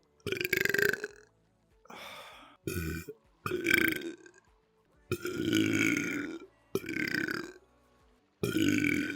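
A rapid series of human belches, about seven in a row with short gaps between them. The longest comes near the middle and lasts over a second, and several fall in pitch as they go.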